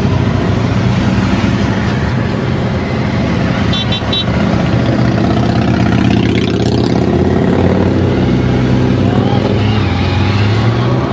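Motorcycles passing close by one after another, their engines running, the pitch rising and falling as each goes past. A few short high beeps sound about four seconds in.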